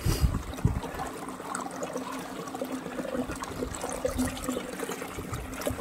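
Water running and trickling at the mouth of a hand hydro-drilled sand-point well: drilling water flowing back out of the borehole and carrying sand. A steady low hum runs underneath, with a few dull knocks about the first second.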